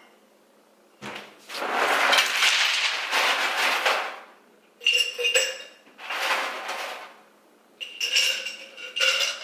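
Ice being handled in a freezer drawer: a long rustling clatter, then ice cubes dropped clinking into a glass mason jar, with ringing glass clinks about five, eight and nine seconds in.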